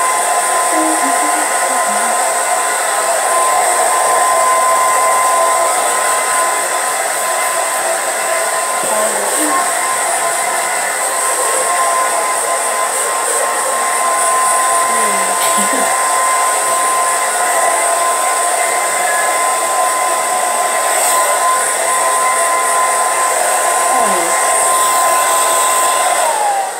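Handheld hair dryer blowing steadily, its motor giving a steady whine over the rush of air. Near the end it is switched off and the whine sinks as the motor winds down.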